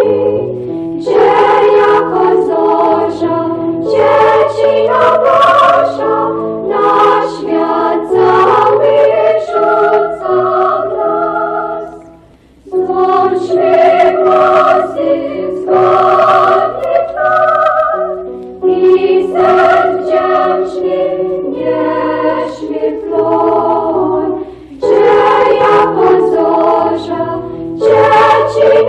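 Women's choir of nuns singing a Polish Christmas carol in harmony, played from an old vinyl record with poor transfer quality. A short break between phrases comes about twelve seconds in.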